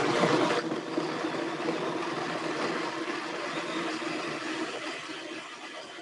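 Countertop blender running on a thick purée of soaked cashews, sweet potato and water, a steady whirring motor and blade noise. About half a second in it turns quieter and duller, then fades gradually as the mixture thickens.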